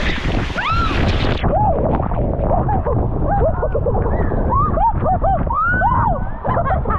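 Waterfall crashing into its plunge pool at close range. About a second and a half in the sound suddenly turns dull and muffled, as when the camera goes under or is swamped by water, leaving a churning roar with short gurgling blips.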